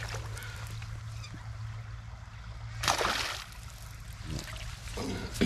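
A hooked silver (coho) salmon thrashing and splashing at the surface of a creek while being played on a rod, with one loud splash about three seconds in and smaller splashes after.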